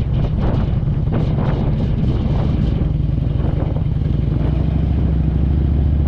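Motorcycle engine running steadily while riding, with heavy wind buffeting on the microphone.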